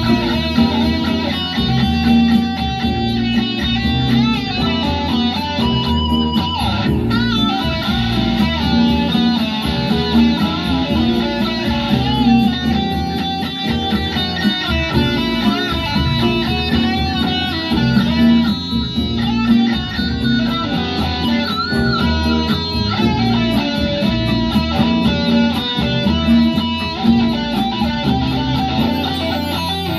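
Les Paul-style electric guitar played continuously, with some bent, wavering notes.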